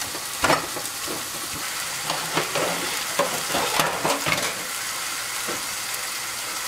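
Thin slices of chile-marinated carne enchilada frying in oil in a skillet, a steady sizzle. Over the first four seconds or so, irregular knocks and scrapes of a stone pestle grinding chile in a volcanic-stone molcajete sound over the sizzle.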